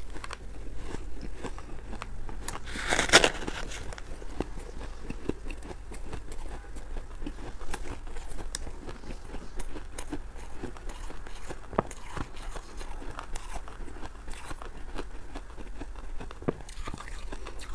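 Mouthful of crushed ice being chewed close to a clip-on microphone: a steady run of small crackling crunches. One louder, longer crunch comes about three seconds in.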